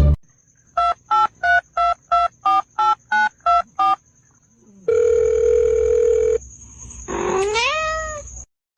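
A run of ten short electronic beeps, about three a second, like a phone keypad being dialled. Then comes a steady tone lasting about a second and a half, and near the end a cat meows once, rising then falling in pitch.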